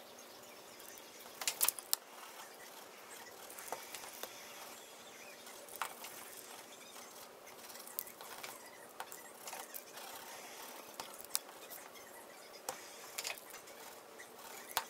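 Irregular light clicks and short scratchy strokes from drawing, over a faint steady hiss.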